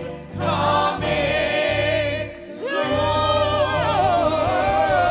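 Gospel-style choir singing over instrumental backing with steady low bass notes. The music dips briefly twice, just after the start and about halfway through.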